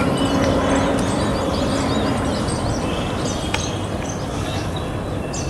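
Jet airliner on its landing approach, heard as a steady rumble of its engines with a low hum that fades out about two seconds in, the whole slowly getting quieter. Small birds chirp throughout, and there is one sharp click near the middle.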